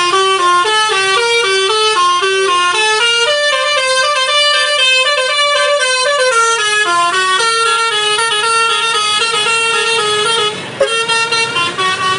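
Bus 'basuri' telolet musical horn playing a quick tune, note after note in rapid steps with several pitches sounding at once. The tune breaks off briefly near the end and then goes on.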